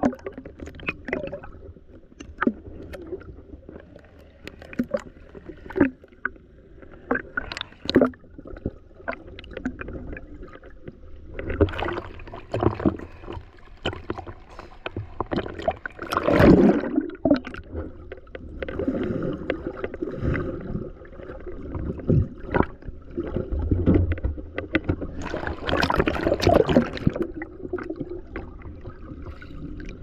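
Water sloshing and splashing around a small fishing boat, with scattered sharp knocks and thuds.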